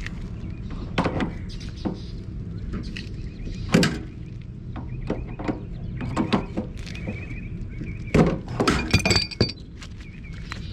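Galvanized steel pipe and fittings knocking and clinking as they are handled, with several separate sharp knocks and a quick run of clanks near the end.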